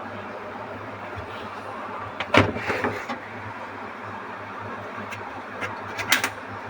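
Knocks and clatter of washing-machine parts being handled during disassembly, a cluster a little over two seconds in and another near the end, over a steady low hum.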